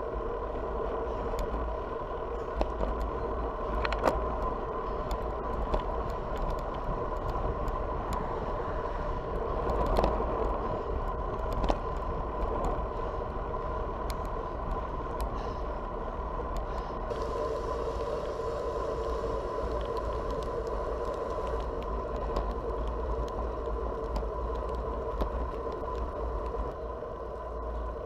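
Riding noise from a road bike, picked up by a handlebar-mounted camera: steady wind rumble on the microphone and tyres rolling on asphalt, with a few sharp clicks and knocks from bumps in the path.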